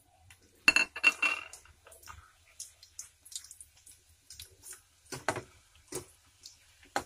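Sliced onions tipped from a plate into hot oil in a stainless steel pot, with a clatter and a short metallic ring about a second in. A metal ladle then stirs them, clinking and knocking against the pot, with sharper knocks around five and six seconds in and near the end.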